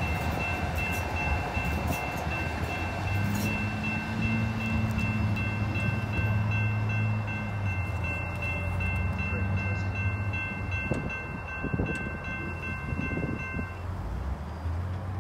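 Level-crossing warning bell sounding steadily as a Siemens S200 CTrain light-rail train runs through the crossing and away, with a low rumble in the middle stretch. The bell stops about 14 seconds in as the gate arms begin to lift.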